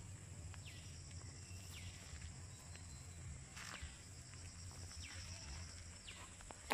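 Outdoor insect ambience: a steady high-pitched insect drone, with short downward-sliding calls every second or two over a low rumble. A single sharp click at the very end.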